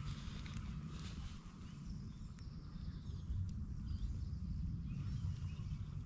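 Steady low rumble of wind on the microphone, with faint bird calls over it.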